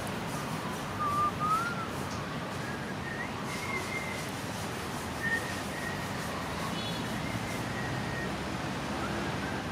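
Thin whistled notes that waver and slide in pitch, coming and going throughout over a steady background hiss.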